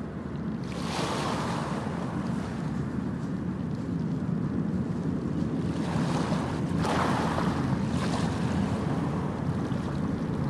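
Sea water splashing as swimmers dive in, once about a second in and again around six to seven seconds, over a steady low rumble of wind on the microphone.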